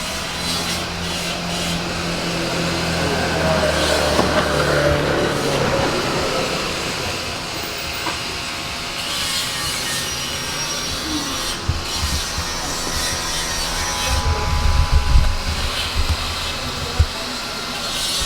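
Metalworking machinery running in a machine shop: a steady mechanical hum with cutting and rubbing noise. Heavier low thuds come near the end, with one sharp knock.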